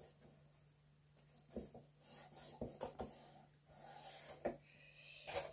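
Hands rubbing and pressing on a cardboard box's panels, faintly, with a few soft knocks as it is handled, over a steady low hum.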